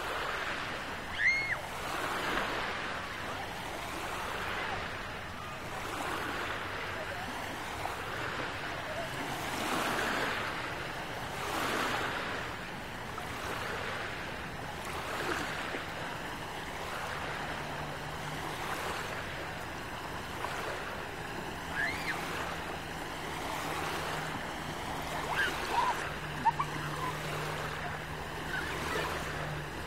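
Small lake waves lapping and washing at the shoreline, rising and falling in gentle, uneven swells. A low steady hum joins in about halfway through.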